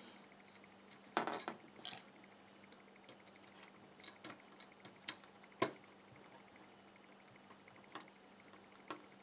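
Scattered small clicks and taps of a screw, small tool and carbon-fibre frame plates being handled as a screw is fitted through the quad frame, with a short clatter about a second in and a sharper tap around the middle.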